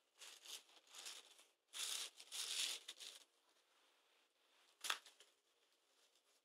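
Rustling and crinkling of packing tissue paper and faux-leather trousers being unfolded by hand, in two short bursts during the first three seconds, then a single sharp click near five seconds in.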